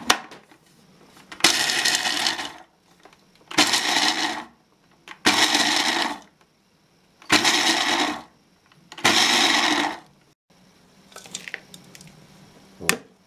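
Panasonic blender's chopper attachment pulsed five times, about a second each, grinding walnuts into coarse crumbs. A sharp knock comes near the end.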